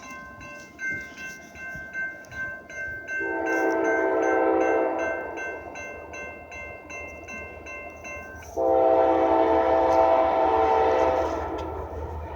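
CSX locomotive air horn sounding two long chord blasts, the first about three seconds in and the second about eight and a half seconds in, over a grade-crossing warning bell ringing rapidly. A low rumble of the approaching train builds near the end.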